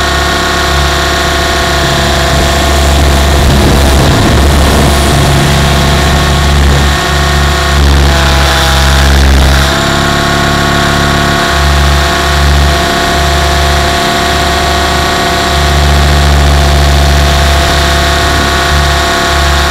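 Compass 6HV electric RC helicopter in flight, heard close up from its tail boom: a steady whine from the motor and gears over the low, pulsing beat of the spinning main rotor. The sound swells and dips slightly as the helicopter manoeuvres.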